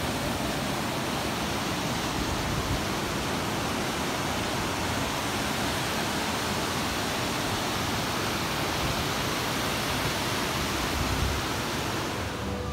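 Waterfall and creek cascade: a steady, loud rush of falling water with no change throughout.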